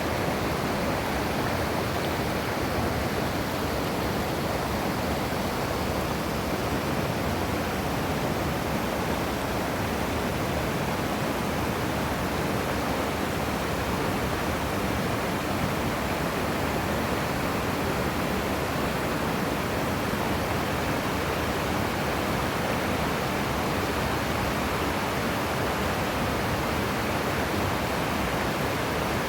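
Waterfall pouring and splashing, a steady rush of falling water.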